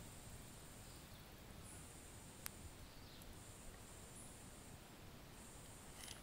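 Near silence with a faint high insect buzz that comes and goes in stretches of a second or two, and one sharp click about two and a half seconds in.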